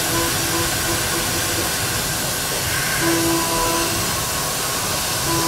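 Haas CNC vertical mill cutting an aluminium block with an end mill: a steady hiss with a machining tone that comes and goes every half second or so.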